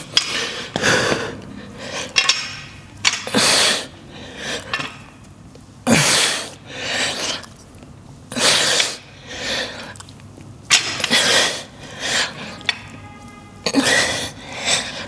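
A weightlifter breathing out hard in sharp, forceful bursts, about one every one to two seconds, as he pushes through the reps of a set.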